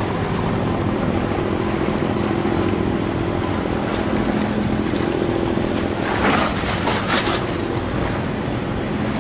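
A boat's engine running steadily with a low hum, over a wash of wind and water noise, and a short burst of hiss about six seconds in.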